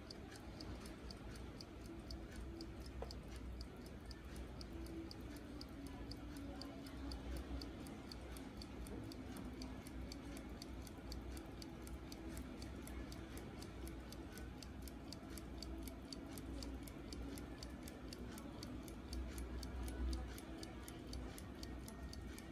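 1958 Westclox Scotty pocket watch movement ticking steadily and evenly, about four ticks a second, as its balance wheel swings. A low rumble of handling noise swells briefly a couple of times.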